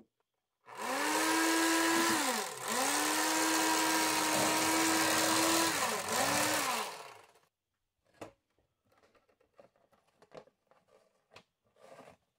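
Electric fillet knife running as it cuts along a walleye. Its hum sags sharply in pitch twice under load, then winds down and stops about seven seconds in. Faint taps and scrapes of the fillet being handled on the plastic board follow.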